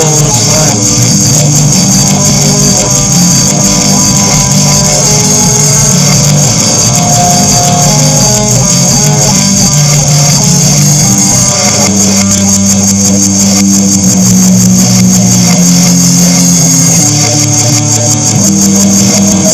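Loud, dense music with held low notes that change every few seconds under a steady bright high hiss.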